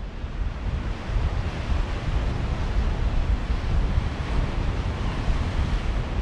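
Sea waves washing against a rocky shore, with wind buffeting the microphone as a steady low rumble.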